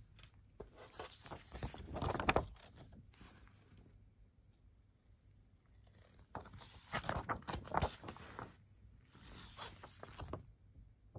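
Large paper lyric insert and record sleeve rustling and crinkling as they are handled, in three bursts with small sharp ticks, the loudest about two seconds in and again near eight seconds.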